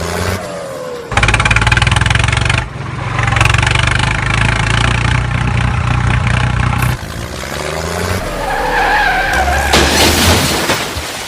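Loud vehicle engine sound starting about a second in and running steadily for several seconds, with falling whines just before it and again around eight seconds.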